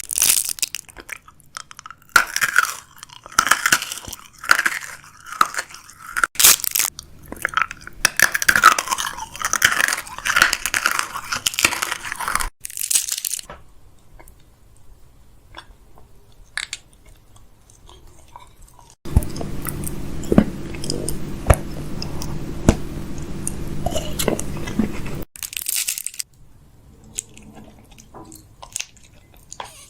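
Close-miked crunching and chewing mouth sounds. Dense crackling bites fill the first half, then thin out to sparse clicks. A steady low hum lies under one stretch of about six seconds near the end.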